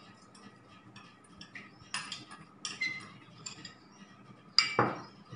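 A spoon clicking and scraping against a stainless steel mixing bowl as caster sugar is scraped in from a small bowl. The loudest sound is one sharper knock near the end.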